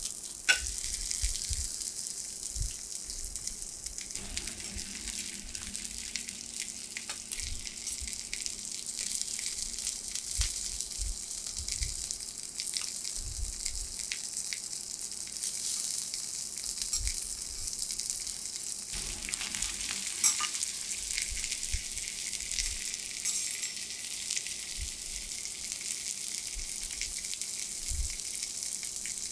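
Sweetfish (ayu) sizzling on a hot teppanyaki steel griddle, a steady high hiss. Metal spatulas give occasional sharp taps and scrapes against the griddle, the sharpest about half a second in and again around twenty seconds in.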